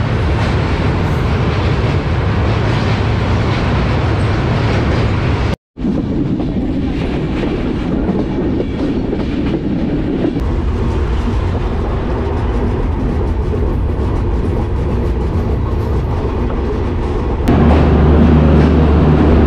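Passenger train running at speed, heard from an open coach doorway: a steady rumble and clatter of wheels on rails, first while crossing a steel truss bridge. The sound cuts out for a moment about five and a half seconds in, changes again about ten seconds in, and grows louder near the end.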